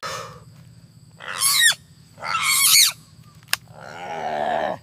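Two shrill animal calls, each about half a second with sliding pitch, then a single sharp click and a rougher warbling call near the end, over a low steady hum.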